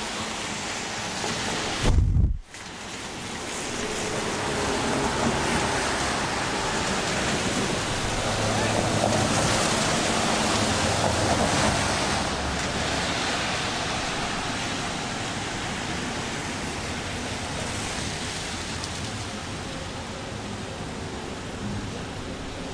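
Gusty wind rushing across the microphone ahead of a rain storm, with passing traffic underneath; a loud low thump about two seconds in, then the rushing swells and slowly eases.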